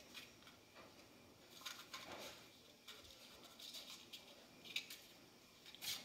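Faint, scattered scratching and rustling of a Siberian kitten's paws scrabbling on the fabric floor of a pop-up playpen while it bats at a dangling string toy, the sharpest rustle near the end.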